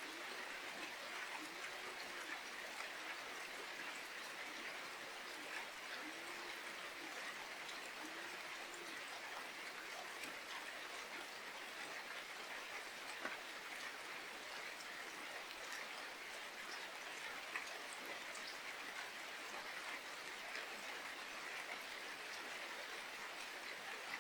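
Steady rain falling, with many small drops and drips ticking on surfaces. For the first several seconds a short, low call repeats about once a second.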